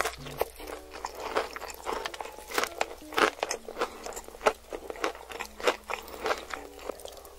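Crispy fried chicken being crunched and chewed close to the microphone: an irregular run of sharp crunches from the battered crust, several a second.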